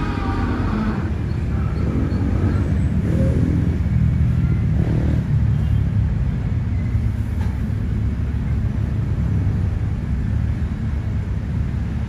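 Diesel engine of a Caterpillar wheeled excavator running with a steady low rumble, its pitch rising and falling briefly about three and five seconds in as the machine works its boom.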